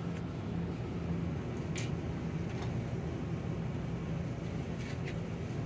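A steady low mechanical hum with a few faint light clicks, the clearest about two seconds in.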